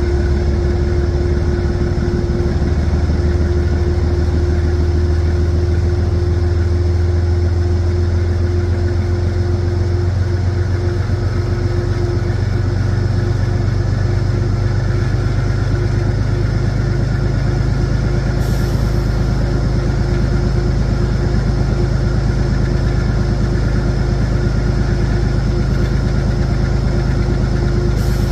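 Diesel locomotive's engine running steadily at low speed, a loud low drone with a steady hum above it; the low note shifts up slightly about eleven seconds in. The source is a Metro-North P32AC-DM in diesel mode, whose prime mover is a GE 7FDL-12 V12.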